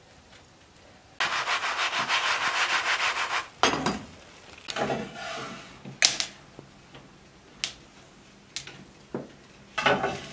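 A frying pan scraped and shuffled on the top of a cast-iron wood stove: a rapid, even rasping scrape of metal on metal for about two seconds, then a sharp knock followed by scattered clicks and shorter scrapes, with another scraping burst near the end.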